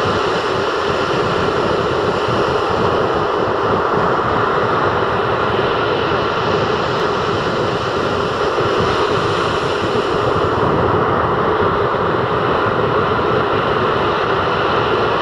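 Rough sea surf breaking in several lines of waves onto a beach: a steady, unbroken wash of noise with no single wave standing out.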